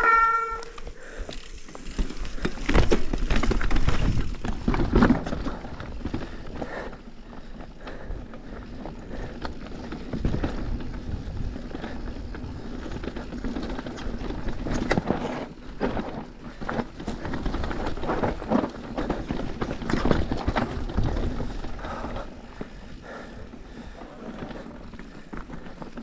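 Downhill mountain bike running down a dry, rough dirt trail: tyres on dirt and the bike rattling and knocking over bumps, with a short squeal at the very start.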